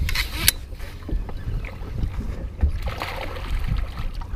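Wind rumbling on the camera microphone in an open boat, with a short splash of water right at the start and more splashing about three seconds in.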